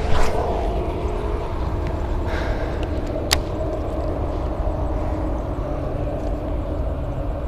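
A steady low rumble with a faint hum under it, like distant engine noise, behind the handling of a baitcasting rod and reel. There is a bump of handling noise as the cast is made at the start, and a single sharp click about three seconds in.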